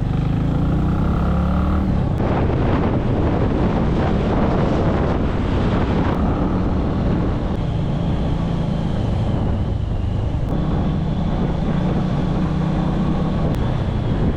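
Motorbike engine running steadily while riding, with wind noise on the microphone, heaviest a few seconds in.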